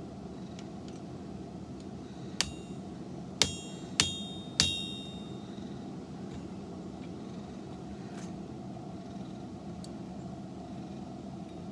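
Four hammer blows on steel, each with a short metallic ring, the last two ringing longest. The first comes about two and a half seconds in, and the other three follow quickly, about half a second to a second apart. A steady low hum runs underneath.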